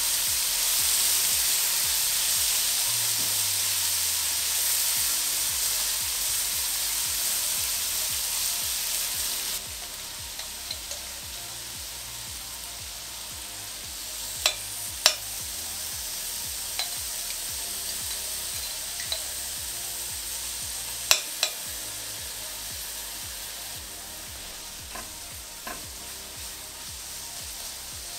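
Sliced onions sizzling in hot oil in a stainless steel pot as they are stirred with a spatula. The sizzle drops abruptly to a quieter level about ten seconds in. A few sharp clicks of the utensils knocking against the pot come later.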